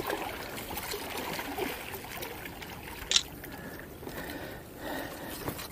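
Faint water lapping and trickling at a stony shoreline, with one short sharp click about three seconds in.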